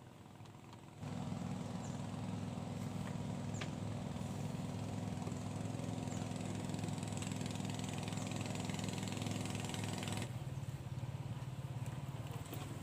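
A small engine running steadily. It cuts in abruptly about a second in and drops to a lower pitch near the end.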